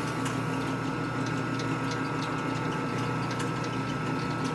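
Machine tool, most likely a milling machine, running steadily with an even hum and a few held high tones, and faint scattered ticks.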